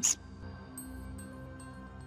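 Quiet background music of sustained tones, with three light high chimes about a second in.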